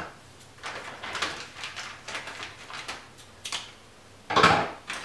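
Small knocks and scrapes of wooden spacers and hardware being handled on a cabinet top, with a louder clatter about four and a half seconds in as a metal drawer slide is picked up.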